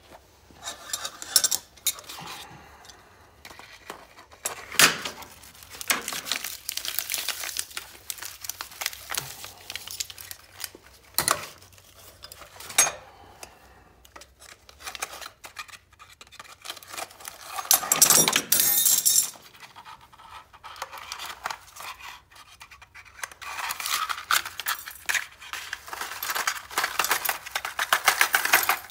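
Stainless-steel foil tool wrap being torn open with pliers on a steel bench plate, with crinkling and tearing foil and pliers clinking against the steel. Near the end, a dense run of rapid clinks as red-hot A2 tool-steel parts, fresh from the furnace, tumble out onto the plate.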